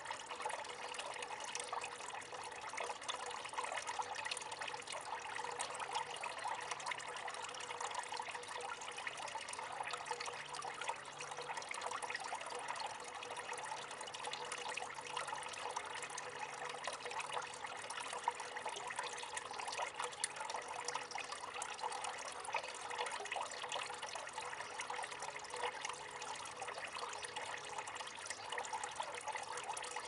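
Small solar fountain pouring a thin stream of water from its spout into the water of its basin: a steady trickling splash.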